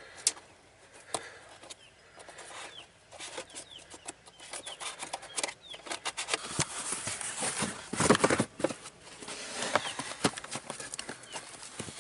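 Rustling and scraping of a car's floor carpet and foam insulation mat being pushed back into place by hand, with scattered clicks and knocks. The scuffling is loudest about two thirds of the way through.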